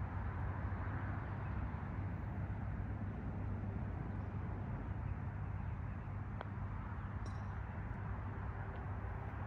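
Steady outdoor background noise with a low rumble, and a faint single tick about six and a half seconds in.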